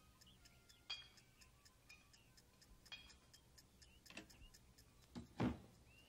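Quiet, steady ticking, about four ticks a second, with a few sharper clicking clinks about one and three seconds in and a couple of soft knocks near the end.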